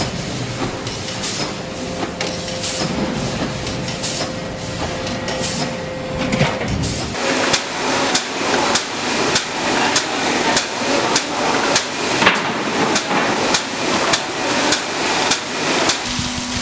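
Factory press line running, a noisy clatter with scattered clicks and a faint steady hum. From about 7 s in, a hand tool scraping wet cement along the edges of stacked steel access-floor panels in regular sharp strokes, about two a second.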